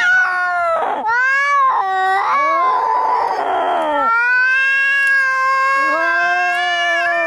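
Angry cats caterwauling in a fight: wavering yowls that bend up and down in pitch, a harsh hissing noise about three seconds in, then one long drawn-out yowl.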